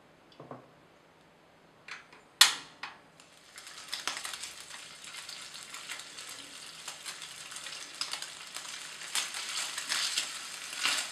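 Turkey slices sizzling and crackling in hot oil as they go into the pan, the frying starting about three and a half seconds in and growing louder. Before it, a few light knocks and one sharp clack about two and a half seconds in, the loudest sound.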